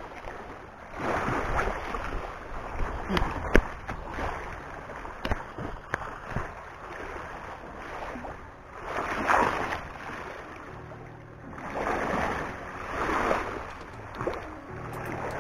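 Small waves washing against a rocky shore, swelling and ebbing every few seconds, with wind buffeting the microphone and a few sharp clicks and knocks.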